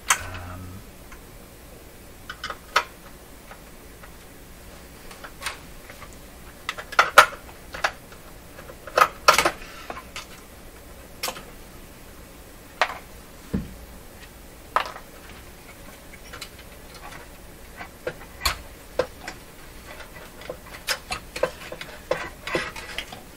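Irregular sharp clicks and light metallic clatter of a screwdriver and the sheet-metal chassis and boards of a Sony HCD-CP300 micro hi-fi being handled during disassembly, with the loudest knocks about seven and nine seconds in.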